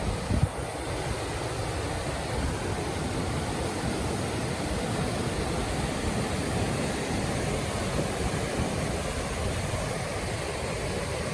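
Waterfall rapids rushing with a steady, even noise.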